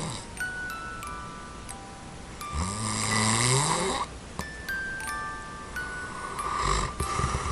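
A man snoring in deep sleep without a tongue-retaining anti-snoring device. One long, low, buzzing snore lasts about a second and a half starting around two and a half seconds in, and a breathier snore comes near the end. This is heavy snoring that he himself feels sounds close to suffocating. Soft chime-like background music plays throughout.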